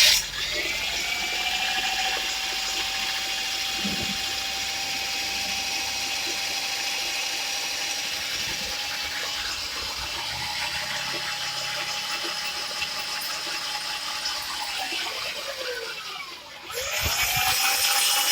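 Electric drill used to spin a part of a truck's differential: the motor whine rises quickly, holds steady for about fifteen seconds, winds down, then the drill starts up again near the end.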